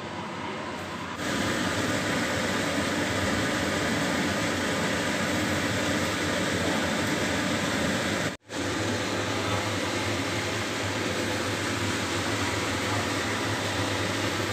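Steady fan-like whooshing noise with a low hum. It gets louder about a second in, cuts out briefly about eight seconds in, then carries on with a stronger low hum.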